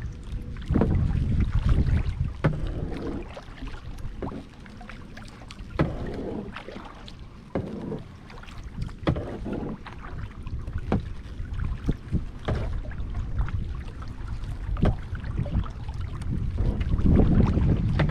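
Kayak paddle strokes in the water, one sharp splash or knock about every second and a half to two seconds, over a low rumble of wind on the microphone.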